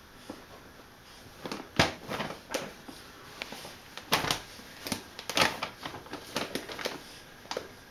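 Puppy scrabbling about in its fabric dog bed, chasing its tail: irregular scratchy taps and rustles that begin about a second and a half in.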